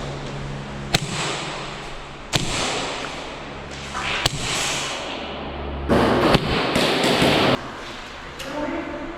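Airsoft guns firing single snap shots: a few sharp, separate cracks about a second or two apart, with longer stretches of rustling and scuffing from players moving behind cover, loudest a little after halfway.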